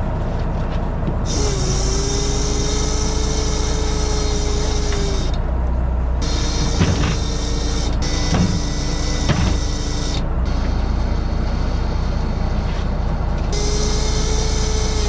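An engine running steadily, with a motor's steady whine and hiss starting and stopping sharply three times, and a few knocks in the middle.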